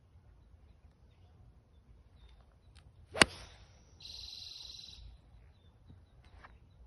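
A 5-iron striking a golf ball: one sharp, loud click about three seconds in. About a second later a steady high hiss lasts for about a second.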